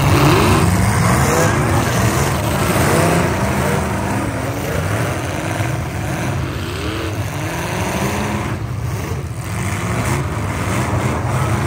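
Engines of full-size demolition derby cars running loud, revving up and down.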